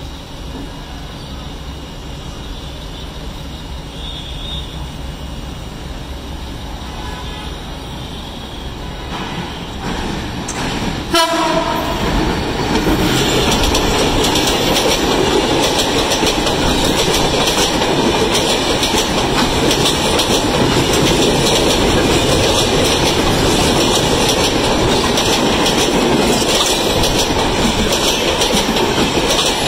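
Bangladesh Railway diesel-hauled passenger train approaching a level crossing: a low rumble slowly grows, a short horn blast sounds about eleven seconds in, then the coaches pass close by with loud, steady wheel clatter and rumble over the rails.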